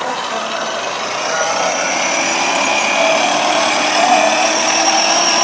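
Electric drive motors of a children's battery-powered ride-on Mercedes-AMG toy truck whining steadily as it drives, with its wheels rolling on concrete. The sound grows a little louder as it goes.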